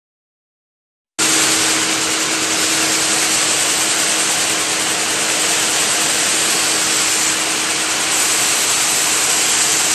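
YGA-1 direct warping machine running: a loud, steady hiss with a steady hum-like tone underneath. It cuts in abruptly about a second in.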